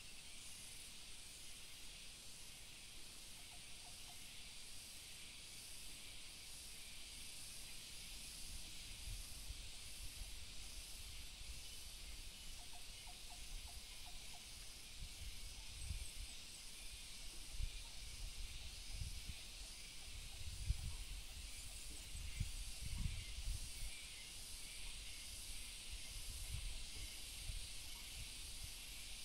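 Faint, steady high-pitched insect chorus with a light pulsing, heard over gusts of wind rumbling on the microphone that grow stronger about a third of the way in. A couple of faint short chirps sound near the start.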